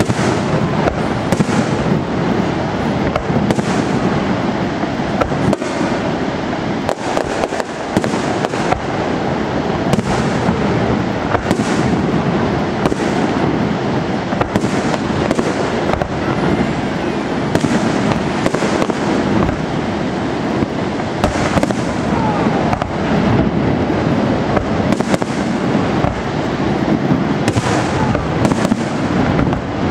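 Fireworks display going off without a break: a dense run of bangs and crackling reports, many sharp ones close together.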